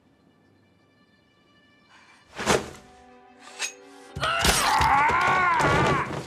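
Film fight sound: a held musical tone, then two sharp knife-strike impacts, then loud strained cries of pain with a scuffle during the stabbing.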